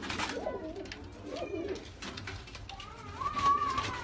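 Domestic pigeons cooing in short low calls, with a higher, longer call near the end and scattered light clicks.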